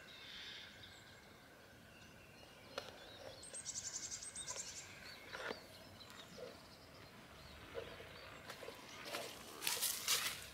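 Quiet woodland ambience with small birds singing: scattered high chirps and a rapid high trill about three and a half seconds in. Near the end, louder rustling and crackling.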